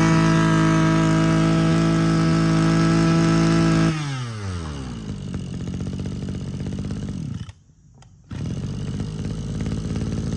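Mitsubishi TL23 brush cutter's 23cc two-stroke engine held at high revs, then the throttle is released about four seconds in and the revs fall to a steady idle. The sound breaks off for under a second partway through the idle.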